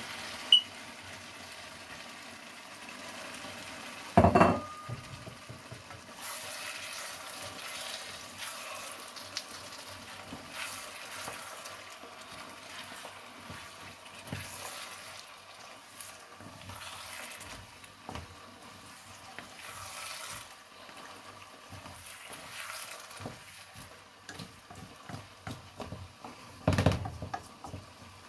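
Wooden spatula stirring and scraping cubes of butternut squash around a wok, over a low sizzle from the sauce. A loud knock with a short ring comes about four seconds in, and another clattering knock near the end.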